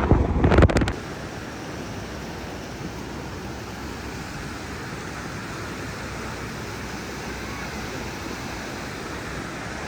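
Steady, even rush of the Toce waterfall's falling water. In the first second a brief loud low rumble sits over it.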